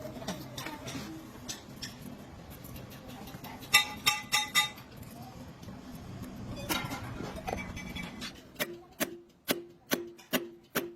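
Metal parts clinking and ringing a few times, then background music of evenly spaced plucked-string notes starts near the end.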